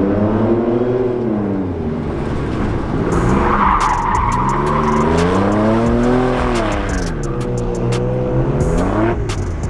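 Modified pickup truck's engine accelerating hard, its pitch climbing and dropping as it pulls through the run, with tyre squeal about four seconds in. The pitch falls away near the end as the truck brakes hard.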